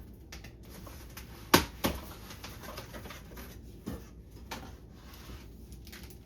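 Items and packaging being handled and set down: a sharp knock about a second and a half in, a second one just after, and a few lighter clicks later.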